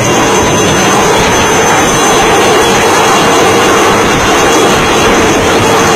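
HAL Cheetah light helicopter hovering close overhead: loud, steady turbine and rotor noise with a thin high whine.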